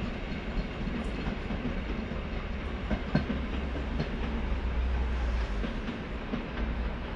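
Train running away down the line: a steady rail rumble with scattered clacks from the wheels over the rail joints.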